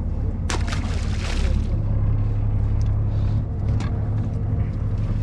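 A fishing boat's engine and deck machinery running with a steady low hum, with a brief rush of noise about half a second in.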